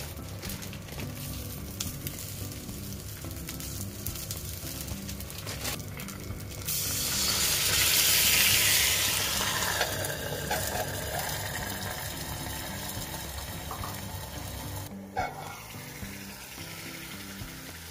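A fried egg and wiener sausages sizzling in a cast-iron skillet. About seven seconds in, a loud burst of hissing starts suddenly, as water hits the hot pan, then fades back to a steady sizzle over several seconds.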